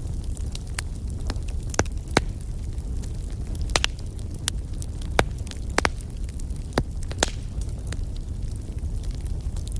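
Wood fire crackling: a steady low rumble of the flames with about a dozen sharp pops scattered at irregular moments.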